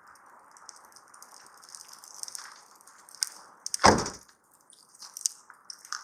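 Dry wood crackling and snapping in small sharp clicks, with one heavy knock just under four seconds in.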